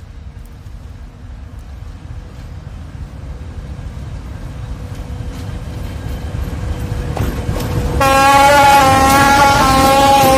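T458-1509 diesel locomotive drawing near with its engine rumble growing steadily louder, then sounding a long, loud horn blast about eight seconds in as it passes close by.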